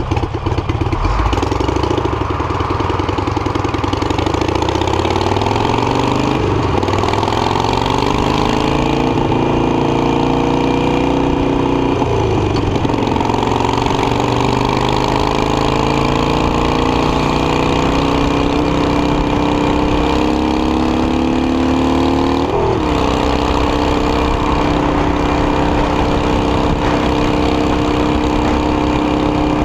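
Harley-Davidson Iron 883's air-cooled V-twin idles at first, then pulls away and accelerates, its pitch rising and dropping three times as it shifts up through the gears. Near the end it settles into a steady cruise.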